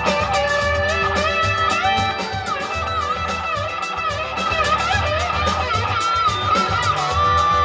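A mixed band track playing back: electric guitar with bent, gliding notes over drums and bass.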